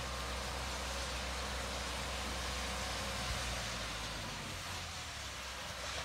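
Tractor engine running with a steady low rumble, under an even hiss. The rumble fades about four and a half seconds in.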